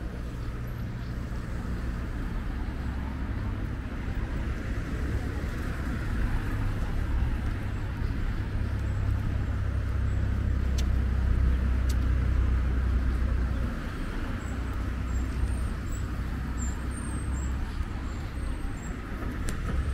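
Street traffic: cars running along the road beside the walkway, a steady low rumble that swells about halfway through and then eases off.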